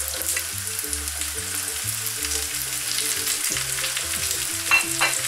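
Sliced red and green bell peppers sizzling and crackling as they are dropped into hot olive oil with browned onions in a frying pan.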